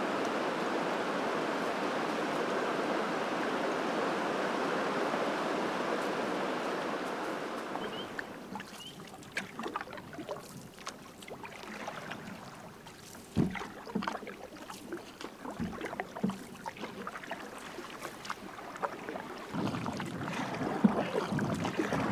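Steady rush of a flowing creek. After about eight seconds it gives way to a canoe being paddled on calm water: soft paddle strokes and drips, with a few knocks on the hull.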